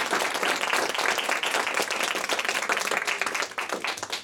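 Small audience applauding with many hands clapping; the clapping thins out and stops near the end.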